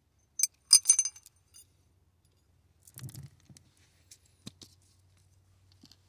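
Small steel balls from a 2016 Honda Civic's seatbelt pretensioner clinking as they are tipped out of the retractor housing: a quick cluster of bright metallic clinks about half a second in, then a few softer knocks and clicks. These are the balls that a fired pretensioner drives out to jam the retractor, so the belt no longer retracts.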